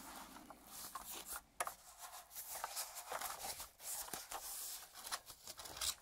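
Packaging being handled as a mechanical keyboard is unpacked from its box: irregular rustling, crinkling and scraping with a few sharper clicks.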